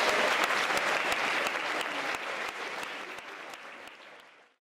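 Audience applauding: steady clapping that fades away and cuts off near the end.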